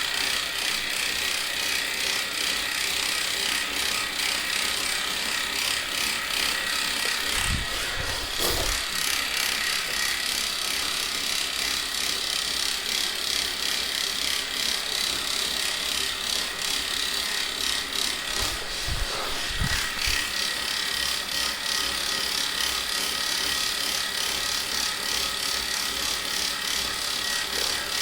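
Wahoo Kickr smart bike trainer running with a rapid ratcheting, clicking mechanical noise over a steady high whine, with a few low thumps. The strange noise is a fault in the three-week-old trainer.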